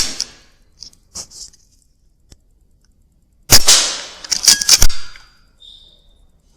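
Weihrauch HW100 .22 pre-charged air rifle firing: a sharp crack at the start and another about three and a half seconds in, followed about a second later by two more loud strikes. Lighter clicks fall in between.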